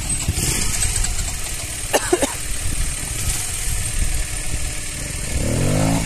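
Small off-road motorcycle engines running, with one bike revving up and easing back down near the end. A short sharp noise comes about two seconds in.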